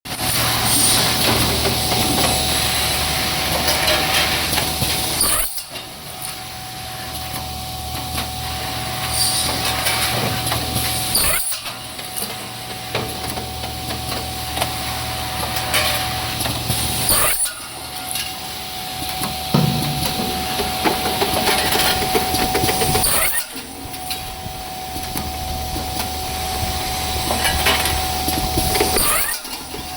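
CNC 45-degree cutting saw with an automatic feeding table, working through repeated cycles. There is a steady motor hum and a high steady whine, with cutting noise and air hisses, and the sound breaks off abruptly about every six seconds.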